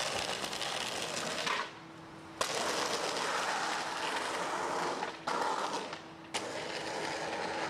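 Skateboard wheels rolling on rough asphalt with a steady grinding noise. The noise drops out briefly twice, the second time while the board is in the air on an ollie near the end, and comes back sharply on the landing.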